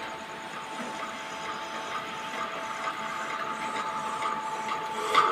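Steady hiss with a thin, faint high whine from a powered-on power amplifier and speaker with no signal playing. Sharp knocks start right at the end.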